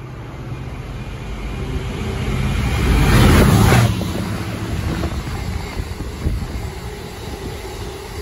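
Container freight train passing through: the locomotive's approach builds to its loudest about three seconds in as it goes by, then the container wagons rumble past on the rails.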